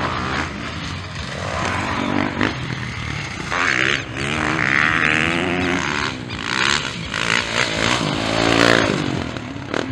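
Motocross bike engines revving hard and passing on a dirt track, the pitch climbing and dropping with the throttle. One bike is loudest as it goes by close, about eight seconds in.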